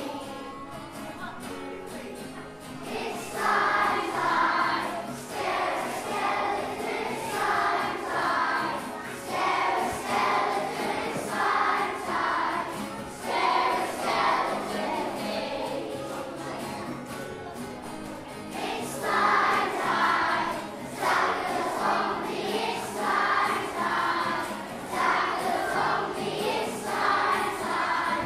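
Children's choir singing a song in a minor key over instrumental accompaniment, phrase after phrase.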